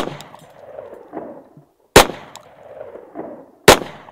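Three pistol shots from a semi-automatic handgun, about two seconds apart, each followed by a rolling echo that lasts about a second.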